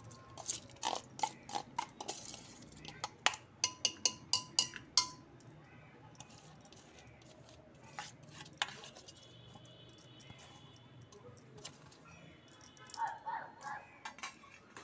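Metal bowl clinking and knocking against the rim of an aluminium pressure cooker as washed lentils are tipped into it: a quick run of ringing metallic clinks over the first few seconds, then two more clinks a few seconds later.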